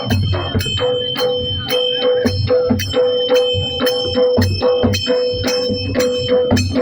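Adivasi dhol music: drums beating a quick, even rhythm of about four strokes a second, with jingling metal strikes and a held high melodic tone over it.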